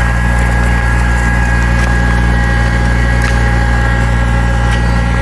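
Tractor engine running steadily with a deep hum and a steady high whine, with a few sharp knocks and rattles over it.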